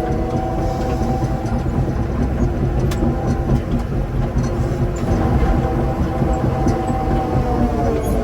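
Heavy earthmoving machine's engine running steadily with a deep rumble. Its engine note dips briefly near the end.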